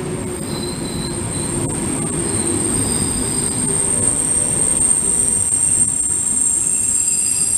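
České dráhy passenger coaches rolling past along a station platform. A steady low rumble runs under a high-pitched wheel squeal that grows louder after the first couple of seconds.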